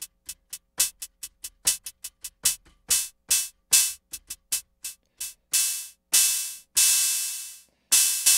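AKAI Rhythm Wolf analog drum machine's hi-hat voice playing a fast repeating pattern of bright, hissy hits, some accented louder. The decay is being turned up: the hits start as short ticks and grow into long, fading washes that sound more like a cymbal than a hi-hat.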